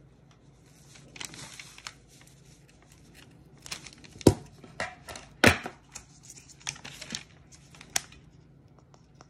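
Handling noises at a craft table: rustling and crinkling of the sheet covering the table and the cord, with a few sharp knocks, the loudest two a little over a second apart near the middle, as a painted ornament ball and a hot glue gun are picked up.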